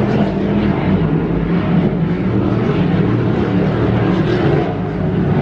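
Engines of several offshore racing powerboats running at speed together, a steady loud drone of overlapping engine tones that drift slightly in pitch.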